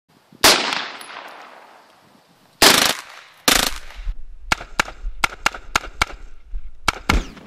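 Rifle gunfire: a few single shots, each with a long echoing tail, then a rapid string of about seven shots fired roughly four a second, and two more near the end.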